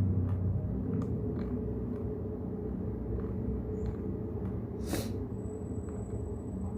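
Steady brown noise, a deep even rumble, with a few scattered keyboard key clicks; one sharper click comes about five seconds in.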